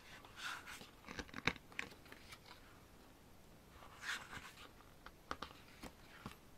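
Pages of a K-pop album photobook being turned by hand: faint paper rustles and swishes in a few short bursts, with some light clicks.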